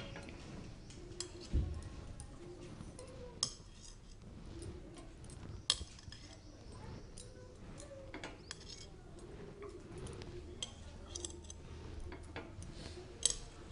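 Metal skewer clinking and scraping against a cast-iron ponganalu (paniyaram) pan as the fried dumplings are lifted out onto a plate: a few scattered sharp clinks over a quiet background.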